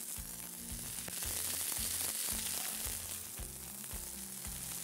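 Wagyu beef burgers and bacon frying on a hot griddle plate, a steady sizzling hiss.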